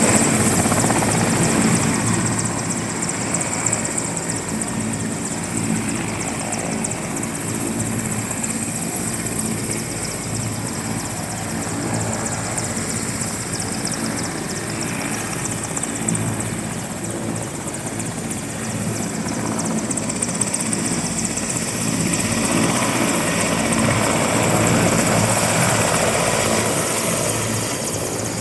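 Helicopter running, with its rotor chopping and a steady high turbine whine. It gets louder for a few seconds near the end.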